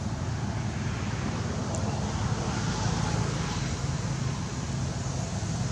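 Steady outdoor background noise with a continuous low rumble and no distinct events.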